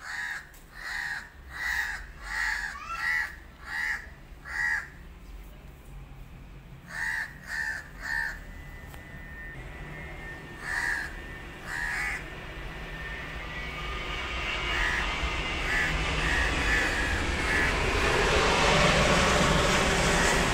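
A crow cawing in a series of short calls, about one every 0.7 s at first, then in smaller groups of two or three. From about two-thirds of the way in, a steady rushing noise swells and grows louder.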